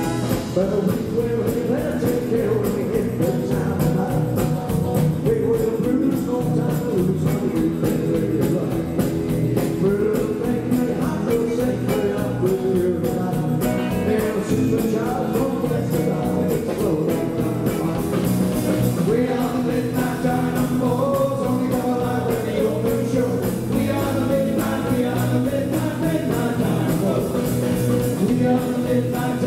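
Rockabilly band playing live: a male lead vocal over electric guitars and a drum kit keeping a steady beat.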